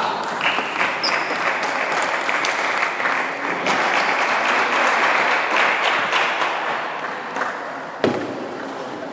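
Applause with many quick claps echoing in a large hall, fading away near the end, followed by a single sharp knock of a table tennis ball struck with a paddle about eight seconds in.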